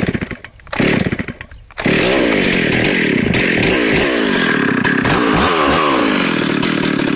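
Ported Stihl 028 AV Super two-stroke chainsaw with a dual-port muffler on a cold start. It fires in two short bursts, then catches about two seconds in and runs loudly, its engine speed rising and falling.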